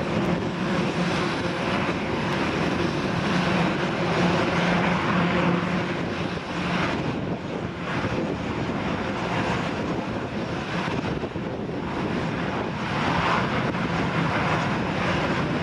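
Eurocopter X3 compound helicopter in flight: its engines and rotors give a steady drone with a low hum underneath, swelling and easing slightly now and then.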